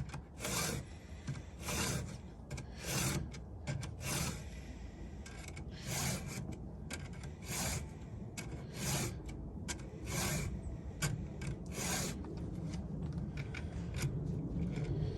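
Stihl 2-in-1 file rasping across chainsaw chain cutters in repeated hand strokes, roughly one a second, sharpening the teeth.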